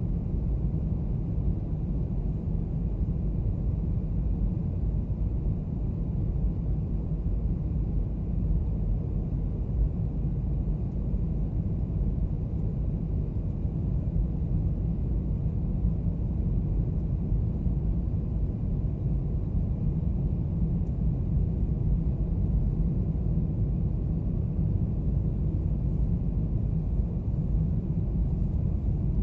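Steady low rumble of engine and airflow noise heard inside the cabin of a Boeing 737 airliner on approach, flaps extended.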